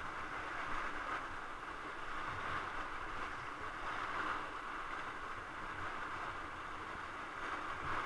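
Steady rushing and churning of whitewater in a river rapid around an inflatable raft.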